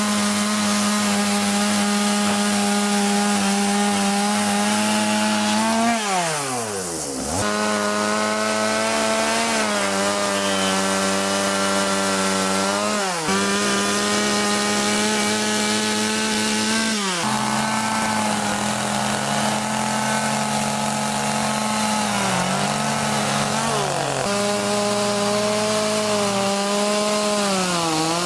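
Two-stroke chainsaw running at high revs while carving wood. Its engine note sags and picks back up several times, dropping deepest, almost to idle, about six seconds in.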